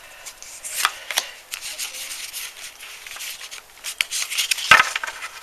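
Pokémon booster pack being opened by hand: the foil wrapper rustling and crinkling, then trading cards sliding and rubbing against each other, with a few sharp clicks and a louder knock near the end.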